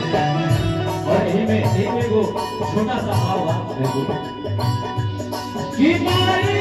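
Live devotional folk music: a sustained melody over a steady hand-drum beat, with a singer's voice rising in about six seconds in.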